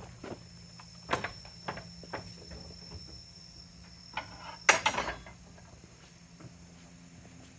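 A series of sharp knocks and clinks, with a louder clatter about five seconds in.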